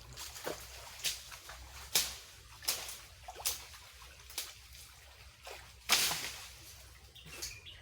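Water splashing in short, irregular bursts, roughly one a second, with the biggest splashes about two and six seconds in.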